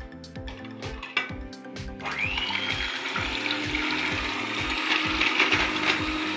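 Electric hand mixer switched on about two seconds in, whining as it comes up to speed and then whirring steadily as its beaters whisk strained yogurt and water in a steel pot.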